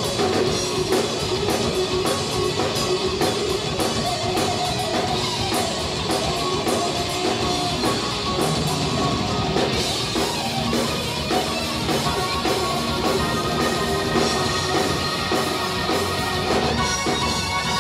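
Live hard-rock electric guitar solo through Marshall amplifiers, with bending lead notes, over a drum kit and bass guitar.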